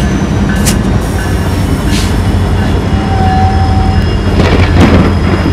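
GE diesel locomotives of Canadian Pacific rolling slowly past: a steady low engine rumble with wheel and rail noise, a short steady whine about three seconds in, and hissing rattles near the end.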